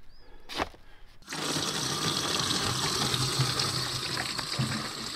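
A single knock about half a second in, then from just over a second in, water gushing steadily from the valve of a caged water tote through a funnel into a plastic container.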